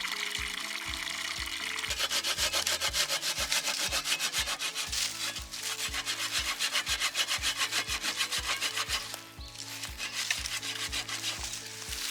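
Hand saw cutting wood in quick, rhythmic back-and-forth strokes, starting about two seconds in and pausing briefly near the end, over background music with a steady beat.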